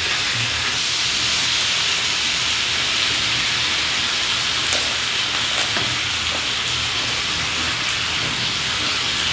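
Thin slices of beef brisket sizzling steadily on a round grill pan over a portable gas stove.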